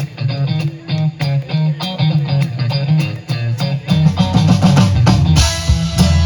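Live rock band music: electric guitar and drum kit playing a steady groove, with the band swelling to a fuller, louder sound about four seconds in.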